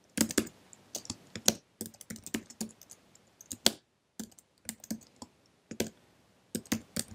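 Computer keyboard being typed on: irregular runs of sharp keystrokes, with a brief pause a little before the middle.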